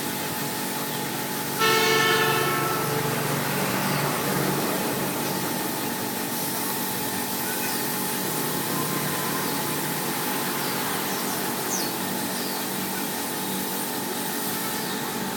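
Air spray gun hissing steadily while spraying PU lacquer. About two seconds in, a loud pitched horn-like tone sounds once and fades over about a second and a half.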